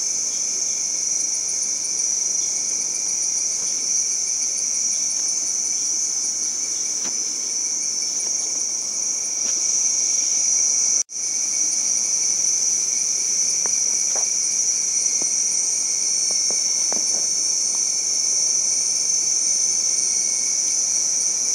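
Dense rainforest insect chorus: a steady, shrill, high-pitched drone of many insects. It drops out for a split second about eleven seconds in, then resumes unchanged.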